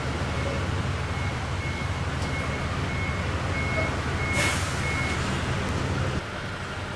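Large diesel coach bus running at low speed while its warning beeper sounds a steady high beep about every half second as it manoeuvres. A short sharp hiss of air comes about four seconds in.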